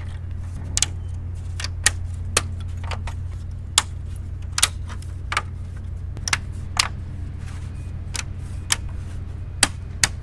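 Hard plastic van grille parts clicking and knocking, sharp and irregular, as the grille insert is handled and clipped into the outer grille. A steady low hum runs underneath.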